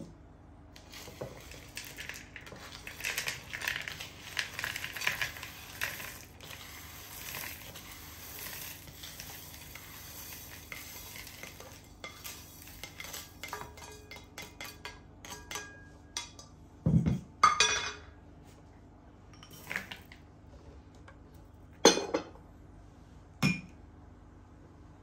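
Plates and cutlery clinking and clattering as they are handled at a table, dense small clinks at first, then several separate louder knocks in the second half.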